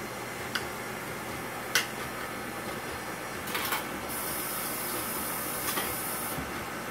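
Two sharp taps of a knife on a plate while chopping strawberries, then a short clatter at the sink and the kitchen faucet running for about two seconds before it is shut off, over a steady mechanical hum.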